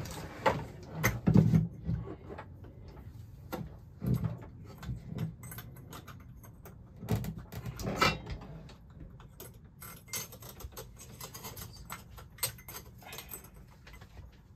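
Handling noise from a stainless pull-out kitchen faucet and its hoses being pushed down through the deck plate and seated on the sink: scattered small clicks and light metallic rattles, with a few duller knocks about a second in and again about halfway.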